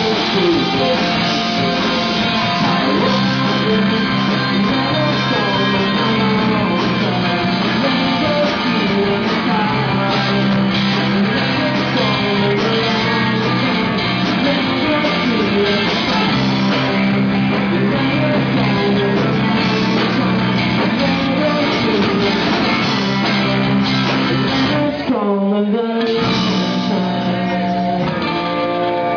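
Live rock band playing loudly: electric guitar, bass and drums with singing. Near the end the bass and drums drop out for a moment.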